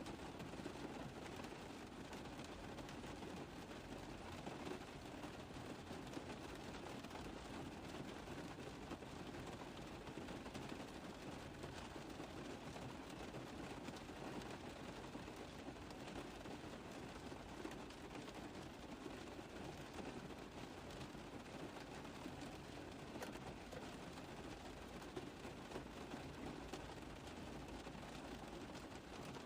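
Rain tapping on a car roof: a steady, dense stream of small drop impacts.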